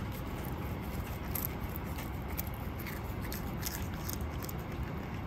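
Calico cat eating wet food from a bowl: quick, wet chewing and licking clicks, over a steady low background rumble.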